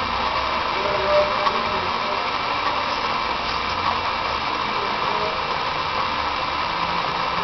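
A machine running with a steady, unchanging whir.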